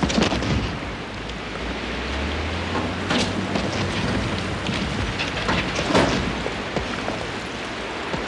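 Load of earth and stones pouring from a dump truck's tipped bed and tumbling down a slope: a loud rushing rumble that surges at the start, with stones clattering, sharpest about three and six seconds in, over the low hum of the truck's engine.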